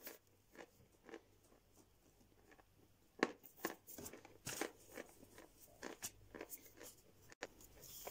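A person chewing dry edible chalk: faint, dull crunches, a few at first, then several a second from about three seconds in.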